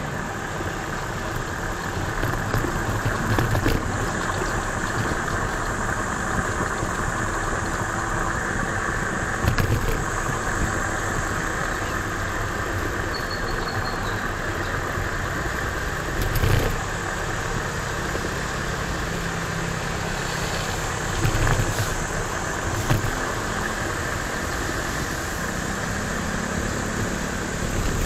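Steady rolling noise of riding a Kuickwheel S1-C Pro electric kick scooter along a road, with a few short louder bumps along the way.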